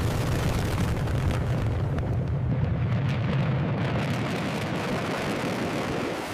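Fighter jet engines roaring in a steady low rumble at high power, easing slightly toward the end.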